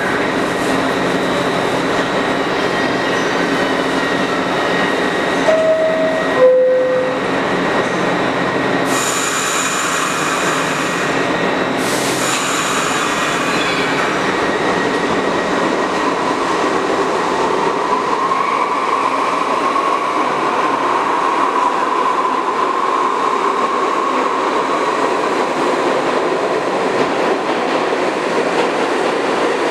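R62A subway train at the platform: a two-tone door chime, the second note lower, about six seconds in, then a hiss of air for a few seconds. After that the train pulls out with a steady motor whine over the rumble of its wheels.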